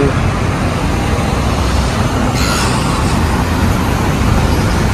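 Street traffic noise: road vehicles passing with a steady low rumble, and a brief hiss about two and a half seconds in.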